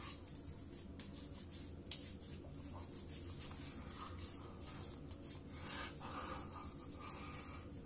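Hands rubbing aftershave balm into the face, neck and beard: faint skin-on-skin and hand-through-beard rubbing, with a few soft taps.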